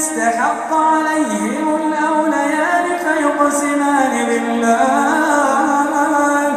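Man's voice chanting Quran recitation in a long melodic phrase: held notes whose pitch steps and glides up and down through several turns, without a pause.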